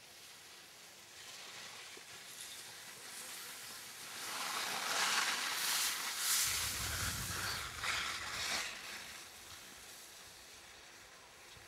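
Short children's skis sliding over packed snow, a hiss that swells as a small skier passes close by and then fades, with a low rumble in the middle.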